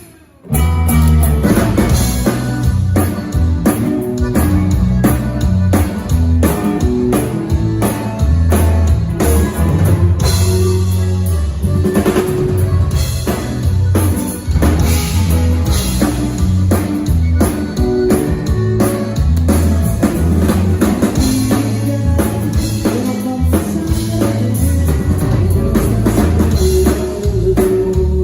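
Live band playing an instrumental passage: drum kit with kick drum and rimshots over a heavy bass line and guitar, with no singing.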